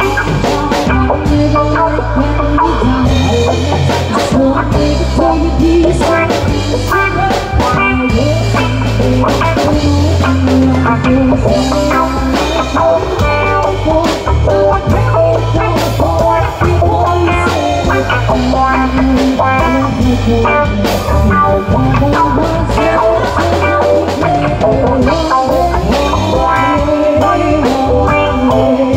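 Band music played loud: a drum kit struck with sticks, with guitar and a low bass line.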